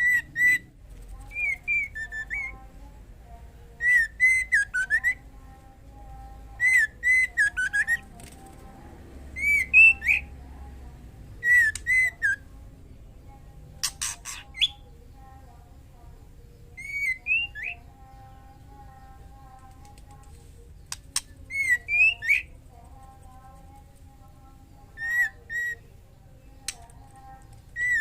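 Female white-rumped shama calling: short whistled phrases of two or three rising and falling notes, repeated every couple of seconds, the call of a female in breeding condition calling a male. A couple of sharp clicks fall among the phrases.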